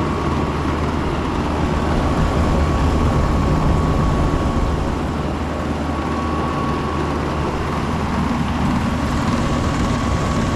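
Outdoor central air conditioner condensing units running: a steady hum of compressor and fan, with a thin, steady high whine over it.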